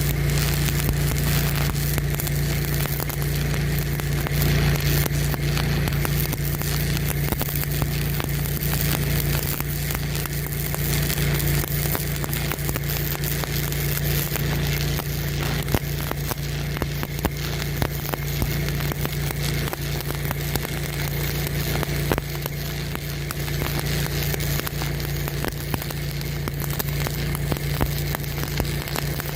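Electric arc welding crackling steadily over a generator engine running under heavy load with a steady drone.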